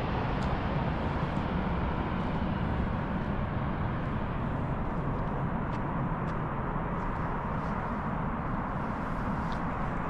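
Jet airliner's engine noise, a steady low rumble that slowly fades.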